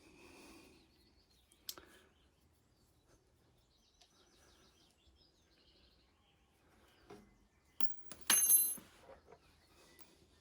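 Quiet outdoor background with a bird chirping faintly in a quick repeated run midway. Small tool clicks come now and then, and about eight seconds in there is a louder sharp clink that rings briefly at a high pitch.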